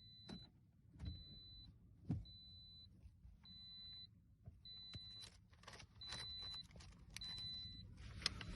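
Faint electronic warning chime beeping at a steady high pitch, about once a second, seven beeps. Light clicks and rattles, like keys being handled, come between the beeps.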